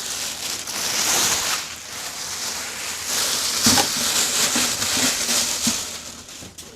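Packaging rustling and crinkling as speakers are lifted out of their box, with a few light knocks about halfway through.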